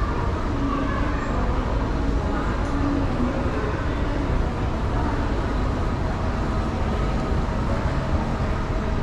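Moving walkway running underfoot: a steady low rumble.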